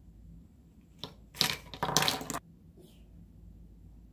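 Small hard-plastic toy figures and toy playground pieces being handled. A single click about a second in is followed by two short, loud bursts of clattering and rattling.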